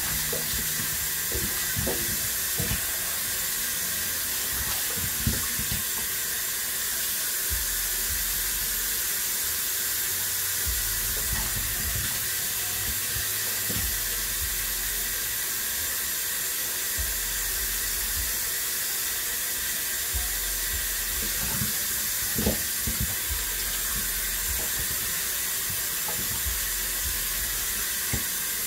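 Kitchen tap running steadily into a stainless steel sink as raw chicken wings are rinsed under it by hand, with a few light knocks.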